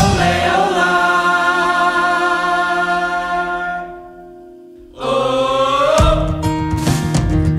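Background music: a held sung note with vibrato fades out about four seconds in. After a brief hush a new sung note swells, and fuller band music with sharp percussive strikes comes in near the end.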